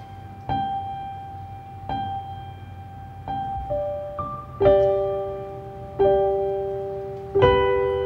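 Slow, gentle solo piano music: single notes and soft chords struck about every one and a half seconds, each ringing on and fading before the next.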